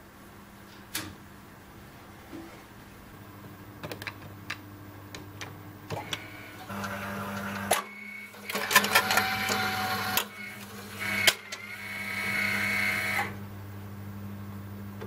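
Wurlitzer One More Time CD jukebox's disc-changer mechanism powering up: a few clicks, then a low hum comes in and its motors and gears whir and clack for several seconds as a CD is carried from the magazine onto the laser deck, settling back to a steady hum near the end.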